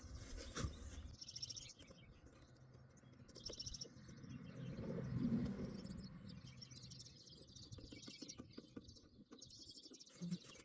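Faint bird chirping: several short, high trilled calls a few seconds apart, with light clicks and knocks underneath.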